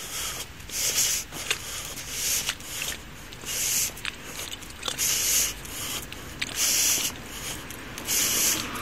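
A person walking while carrying the recording device: a rhythmic run of short hissing bursts, one or two a second, with a few sharp clicks.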